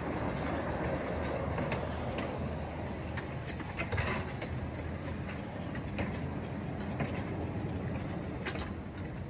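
Miniature steam locomotive passing close by, followed by its train of small wagons rolling past, the wheels clicking now and then over the rail joints.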